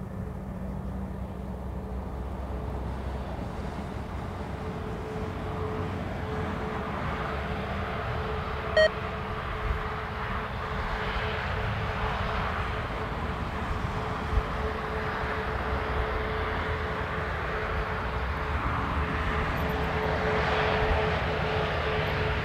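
Airbus A320neo jet engines running at taxi power: a steady whine over a broad rumble that grows slowly louder as the airliner rolls closer. A short sharp blip about nine seconds in.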